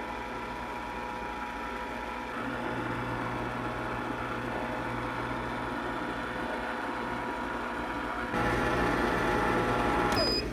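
Electric ice cream maker running, its motor turning the paddle through the strawberry ice cream base as it churns and thickens: a steady mechanical hum. It gets a little louder about two seconds in and again near eight seconds.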